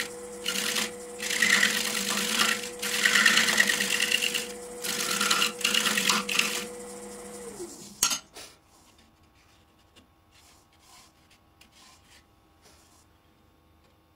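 Wood lathe running with a steady hum while a turning tool cuts inside the spinning wooden sphere in repeated bursts of scraping. About seven and a half seconds in the motor is switched off and its hum falls away, then a sharp click, followed by faint light scraping of a small hand tool on the still wood.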